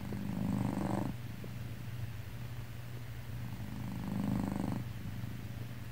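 Domestic cat purring: a steady low rumble with two louder swells about a second long, one at the start and one about four seconds in.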